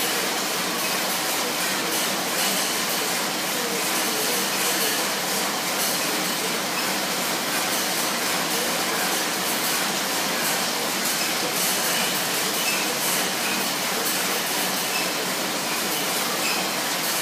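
Schwinn AirDyne fan bike being pedalled, its fan wheel whooshing steadily.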